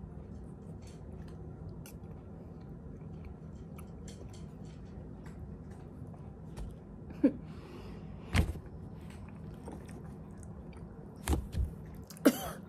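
A person chewing a mouthful of pepino melon flesh: quiet wet mouth sounds, with a few short louder clicks and knocks scattered through.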